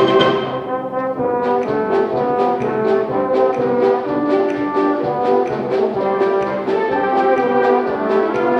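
High school symphonic band playing, with brass to the fore over a steady percussion beat. The upper parts drop out for a moment about a second in, then the full band comes back in.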